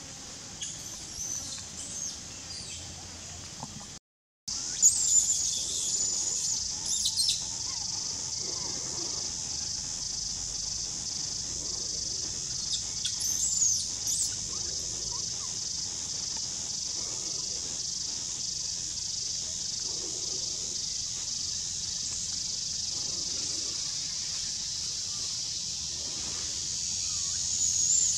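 Forest ambience: a steady high-pitched insect drone with a few bird chirps on top. The sound drops out for a moment about four seconds in, then the drone comes back louder.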